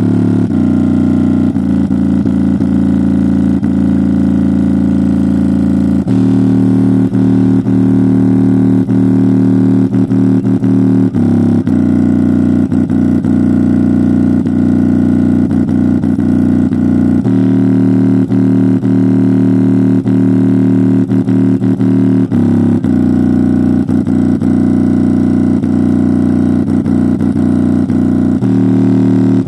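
JBL Flip 5 portable Bluetooth speaker, casing torn open, playing a loud bass-boost track with its passive radiator pumping hard. Deep sustained bass notes, each held for about five or six seconds before the pitch changes.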